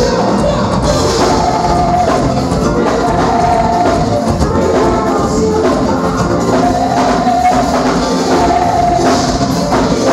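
Forró band music with singing over a steady drum and percussion beat.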